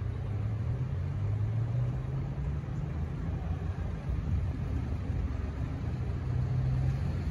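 Steady low rumble of road traffic on a city street, swelling slightly twice as vehicles pass.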